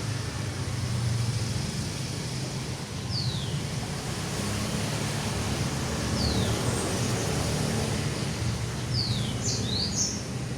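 A steady low rumble, like traffic or engine noise, with a few short high bird calls over it, each sliding downward. One call comes about three seconds in, another about six seconds in, and a quick run of three or four comes near the end.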